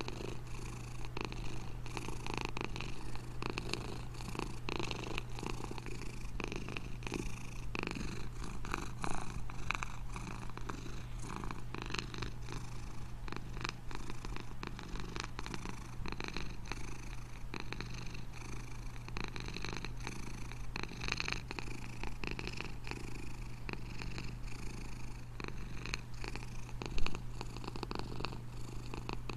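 Domestic cat purring steadily and continuously, with a brief bump near the end.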